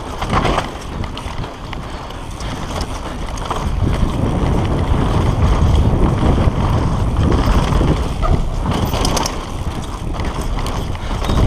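A RAAW Madonna mountain bike descending a dirt trail at speed: heavy wind buffeting on the action camera's microphone, tyres rolling on dirt, and the bike rattling with scattered clicks over the bumps.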